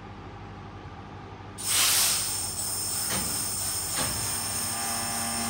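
West Midlands Railway Class 323 electric multiple unit standing with a low steady hum. About one and a half seconds in comes a sudden loud blast of air hiss, which eases into a steady hiss with two faint knocks: typical of the air brakes releasing as the train gets ready to depart.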